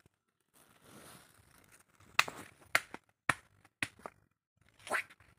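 Footsteps crunching through dry leaf litter and undergrowth: sharp crackles about every half second, starting about two seconds in after a soft rustle.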